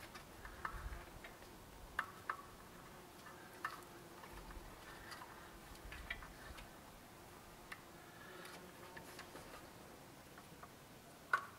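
Faint, irregular light metallic clicks and taps of small parts being handled as the valve cover of a BMW M52 engine is fastened down by hand, with a sharper click near the end.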